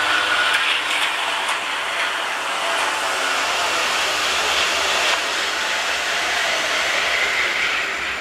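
A greyhound track's mechanical lure running along its rail, a steady whirring rush that eases off near the end.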